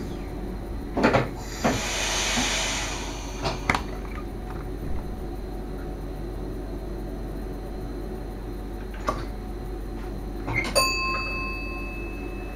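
Sounds inside a Sprinter train's driver's cab: a few sharp clicks and knocks, a hiss of air about two seconds in, and a short single electronic beep near the end, over the cab's steady low hum.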